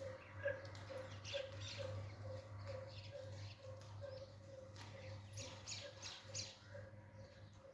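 Alexandrine parakeet making short, quiet chirps and clicks: a quick run about a second and a half in, and another three or four near the end.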